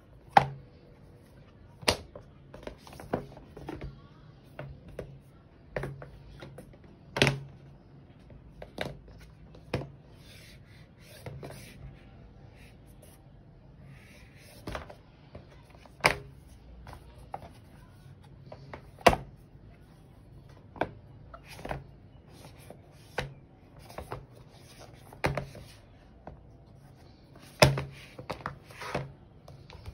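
Handling noise from a plastic iPad case with a magnetic folding cover: irregular sharp clicks and taps as the shell and cover are turned and knocked on the desk, with light rubbing between them, over a faint low hum.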